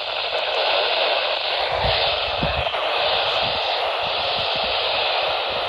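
Steady radio static: an even hiss from a radio receiver with no programme on it.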